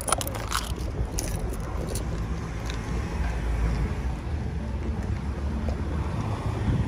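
Town street ambience: a steady low rumble of traffic and wind on the microphone while walking, with a few sharp clicks in the first two seconds.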